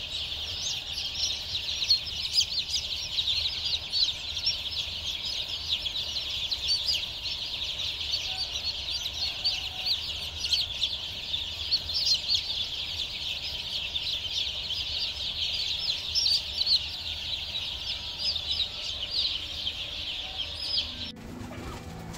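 A crowded crate of day-old chicks peeping: a dense, continuous chorus of short, high-pitched cheeps that cuts off abruptly near the end.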